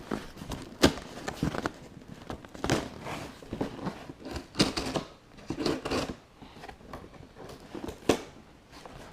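A shipping package being opened by hand: irregular rustling, crinkling and tearing of the packaging with scattered sharp clicks.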